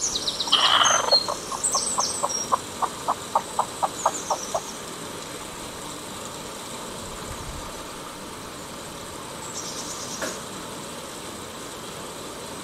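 Chicken hen giving a loud squawk, then a rapid run of short clucks, about four a second, that stops after about four seconds. Small birds chirp high above it, and again briefly near the end.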